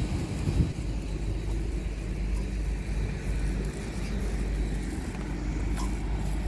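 Hitachi Class 800 'Azuma' bi-mode train standing close by, its underfloor power equipment giving a steady low rumble, with a brief louder bump about half a second in.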